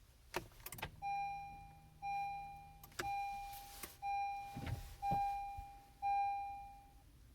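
2016 Honda CR-V's dashboard warning chime beeping six times, about once a second, each beep fading away, with a few clicks from the controls near the start. No engine cranking is heard: the car is not starting.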